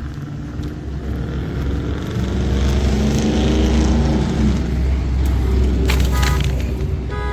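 A motor vehicle's engine running close by, growing louder over the first few seconds and then holding steady.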